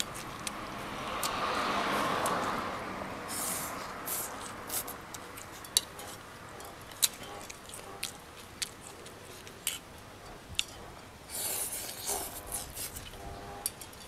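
A person slurping a mouthful of noodles from a bowl of beef noodle soup, a long noisy slurp lasting about two seconds, then chewing with a string of sharp wet clicks and smacks, with a second, shorter slurp near the end.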